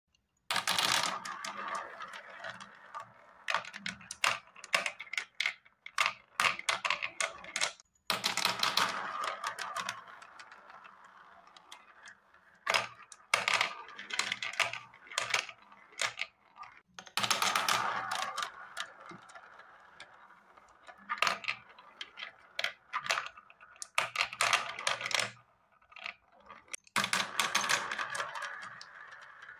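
Balls rolling and rattling around a plastic spiral funnel marble-run track, a continuous rolling clatter with many sharp clicks as they knock together and drop through the centre hole. The clatter stops abruptly and starts again three times.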